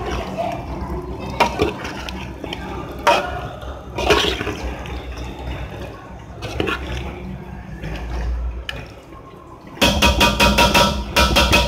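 Thick raw chicken and potato marinade being mixed in a pot, making wet squelching sounds. Near the end comes a quick, loud run of metallic clinks of a spoon against the pot.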